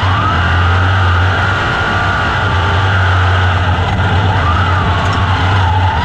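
Onboard sound of a dirt-track open-wheel race car's engine under racing throttle. Its high pitch rises just after the start, holds, then dips and climbs again near the end as the throttle comes off and back on through the turns, over a steady low hum.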